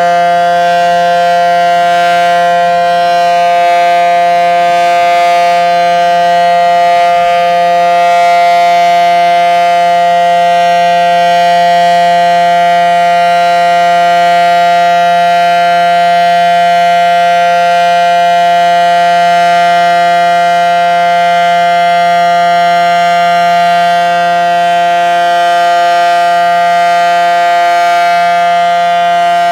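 Federal Signal SD-10 outdoor warning siren sounding its Full Alert signal: a loud, steady, unbroken tone during a tornado siren test.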